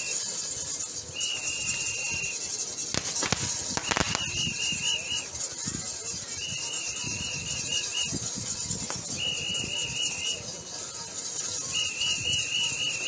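A whistle blown in a run of long, high blasts about every second and a half, several of them warbling like a pea whistle, over a steady crowd hubbub. A couple of sharp knocks come about three to four seconds in.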